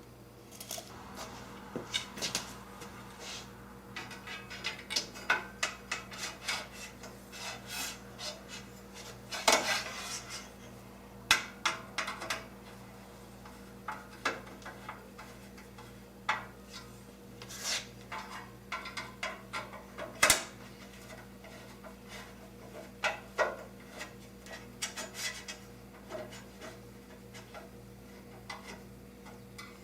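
Aluminium extrusion parts and fasteners being handled: cross braces scraping as they slide down the extrusion slots, with irregular clinks and clicks of metal on metal.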